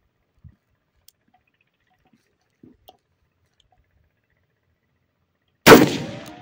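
A single 12-gauge shotgun shot about five and a half seconds in: one sharp report that rings out and fades over most of a second. Before it, only a few faint clicks.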